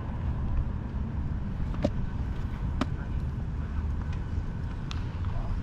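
Outdoor ambience dominated by a steady low rumble of wind on the microphone, with three short sharp clicks about two, three and five seconds in.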